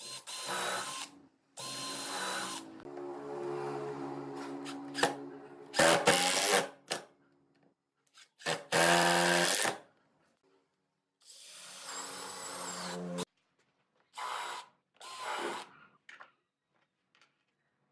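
Electric drill running in about eight short bursts of one to three seconds each, stopping and starting again.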